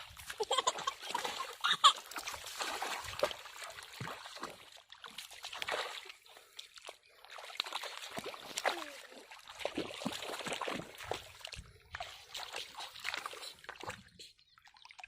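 Muddy pond water splashing and sloshing in irregular bursts as someone wades and gropes by hand in the shallows, with brief lulls between, the sharpest splashes in the first two seconds.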